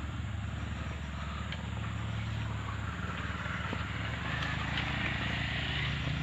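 A small engine running steadily, with a hiss over it that grows a little louder in the second half.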